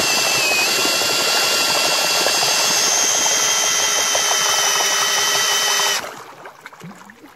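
18-volt cordless drill driving a homemade boat propeller: the drill motor spins up to a steady high whine over churning water, then stops abruptly about six seconds in, leaving faint water sounds.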